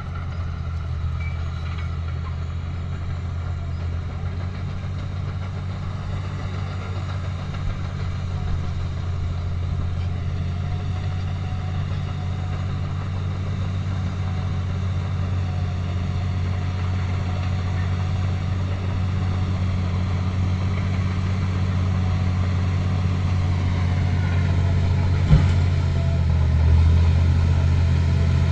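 Engine of a heavy vehicle or construction machine running steadily at a low, even pitch, slowly growing louder. A single sharp knock comes near the end.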